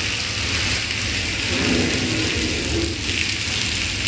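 Rain falling steadily, a loud even hiss.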